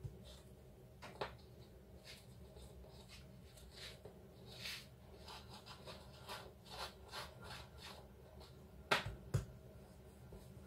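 Faint sounds of hands patting and pressing a small piece of scone dough into a round plastic pastry cutter on a worktop: soft rubbing and light taps, with two sharper knocks near the end.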